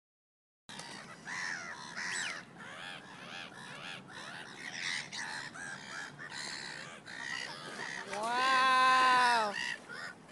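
Birds calling in a busy chatter of short calls. About eight seconds in comes one long drawn-out call of more than a second, the loudest sound.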